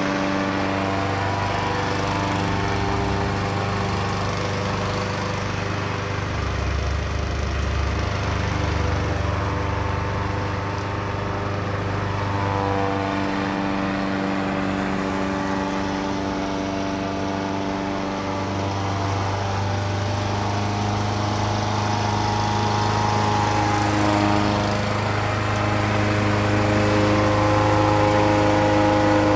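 Small engine of a Weed Eater lawn mower running steadily while mowing weeds, its speed dipping briefly about six seconds in and shifting a few more times as the load changes.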